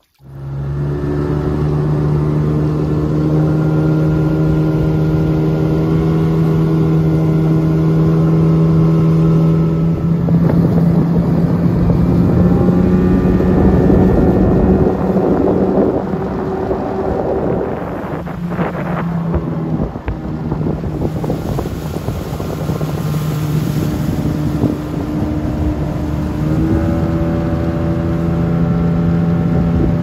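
A small motorboat's engine runs steadily at speed, with water rushing and wind noise on the microphone. The engine note sags in the middle and climbs again near the end.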